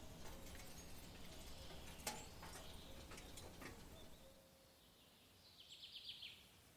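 Faint woodland ambience with a few soft clicks, and near the end a short, rapid bird trill.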